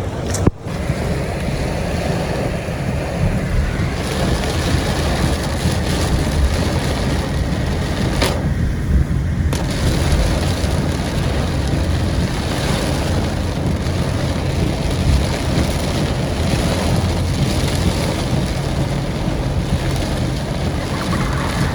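Steady rumble of a vehicle on the move, engine and road noise, with a brief dropout about half a second in.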